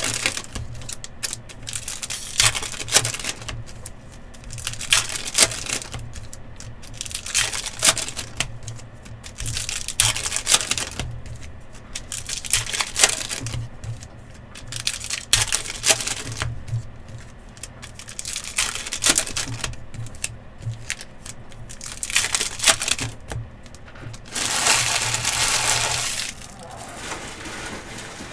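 Trading card packs being opened and handled: irregular crinkling and tearing of wrappers, with cards and packaging clicking and sliding. A longer steady rasp comes near the end.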